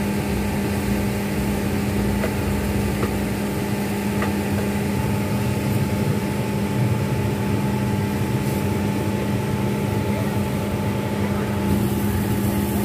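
Steady mechanical hum from a running motor, with a constant low tone and a few faint light clicks now and then.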